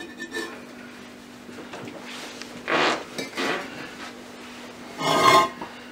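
Fireclay (chamotte) slab being slid off a shelf stacked with refractory bricks: ceramic scraping and clinking, once about three seconds in and again, louder, near the end, over a faint steady hum.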